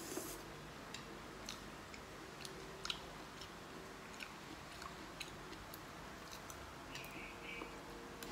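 Faint eating sounds of noodle soup: a short slurp of noodles at the start, then chewing, with many small clicks of chopsticks and spoons against ceramic bowls.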